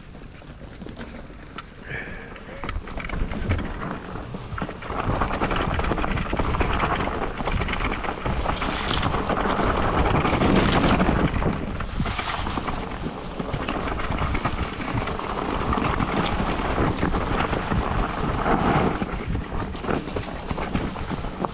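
Mountain bike rolling downhill over loose stones and dry leaves: tyres crunching and the bike rattling, mixed with wind buffeting the microphone. It builds up over the first few seconds, then stays loud.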